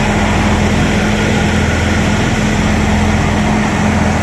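Ghazi tractor's engine and the Diamond wheat thresher it drives, running together in a steady drone.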